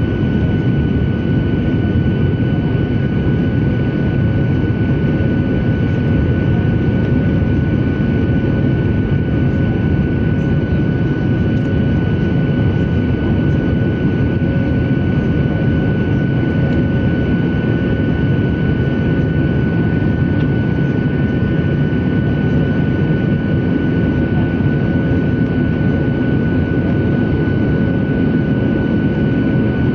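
Cabin noise inside a Boeing 737-800 climbing out after takeoff: the CFM56-7B turbofan engines running at climb power with rushing airflow, heard from a window seat over the wing. A steady high whine from the engine runs over the noise throughout.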